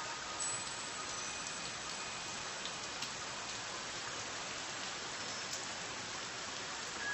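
Steady rain falling, an even hiss of many drops, with a few faint held tones over it.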